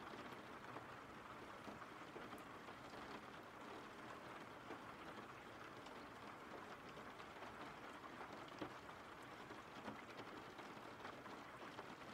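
Faint, steady rain: an even hiss with scattered drops ticking through it.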